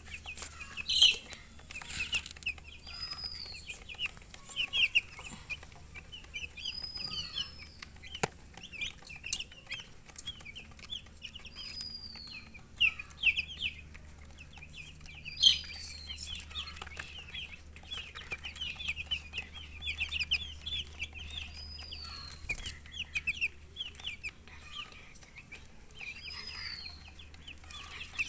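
Chicks chirping continuously in rapid, high, short peeps, with a hen clucking among them.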